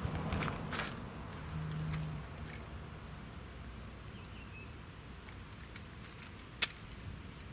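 Steady low background rumble with a few light clicks in the first second, a brief low hum about two seconds in, and one sharp click near the end.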